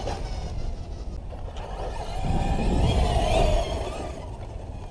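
Brushless electric motor of a 6S-powered RC monster truck whining under throttle, its pitch rising and falling, loudest from about two to three and a half seconds in, over a steady low rumble.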